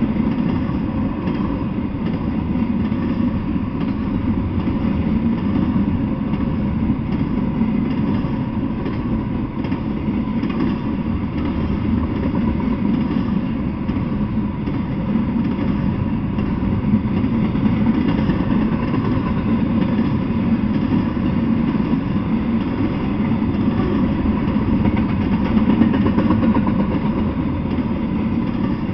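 Double-stack intermodal freight train rolling past: a steady, even rumble of the cars' wheels on the rails.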